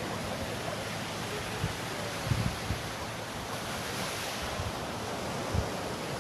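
Sea waves washing onto the beach in a steady rush, with wind buffeting the microphone in low thumps, the strongest about two and a half seconds in and again near the end.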